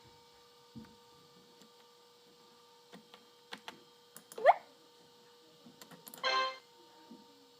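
A PowerBook 170's built-in speaker playing classic Mac OS System 7 alert sounds: a quick rising chirp about four and a half seconds in, then a short buzzy, honking sound about two seconds later. Soft clicks come before them, over a faint steady whine.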